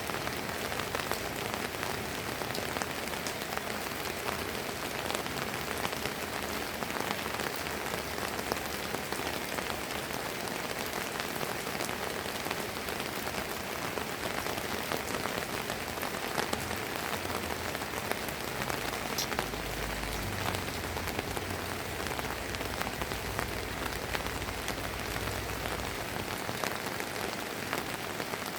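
Steady drizzling rain, with many separate drops ticking sharply. A low rumble comes in about two-thirds of the way through and lasts several seconds.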